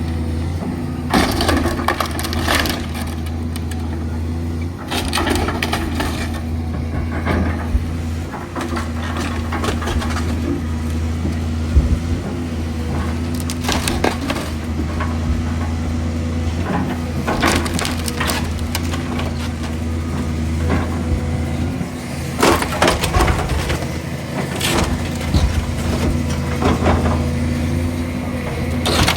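Timber framing of a fire-damaged house being crushed and torn apart, with repeated cracks and splintering in clusters. A heavy machine's engine runs steadily underneath.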